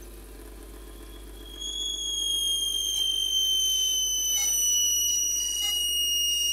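Lathe drilling a wooden pen blank with a dull twist drill bit. It runs low at first, then about a second and a half in a loud, high squeal starts and holds, sliding slowly down in pitch, as the dull bit rubs and heats in the hole.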